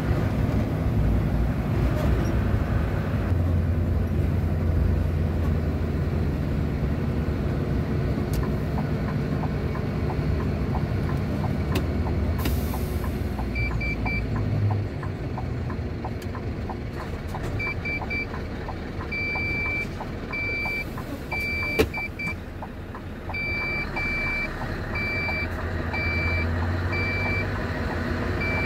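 Truck engine running steadily, heard from inside the cab while driving slowly. From about halfway through, short high electronic beeps repeat about once a second, like a vehicle reversing alarm. There is one sharp click near the end.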